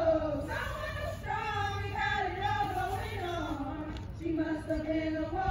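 A group of women singing together in drawn-out, sliding notes.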